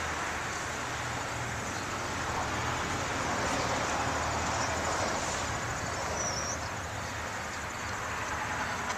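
Steady outdoor road-traffic noise: an even hiss with a low steady hum underneath.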